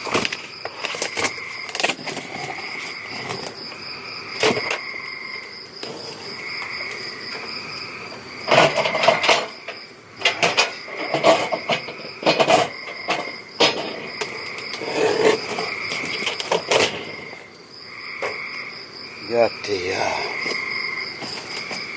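Crickets and other night insects calling steadily, one a continuous high trill and another a pulsing lower chirp. Over them come repeated rustles and clunks of gear and food packaging being handled, busiest from about 8 to 17 seconds in.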